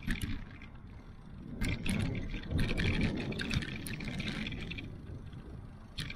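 Riding noise from a bicycle-mounted action camera: wind rumbling over the microphone and tyre noise on asphalt, with scattered sharp clicks and rattles. The noise swells between about one and a half and five seconds in.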